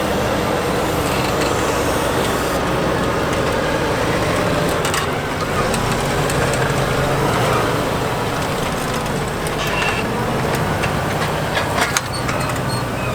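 Fendt 936 tractor's diesel engine running steadily under load while pulling an eight-furrow plough through the soil, with a couple of short sharp knocks, one about five seconds in and one near the end.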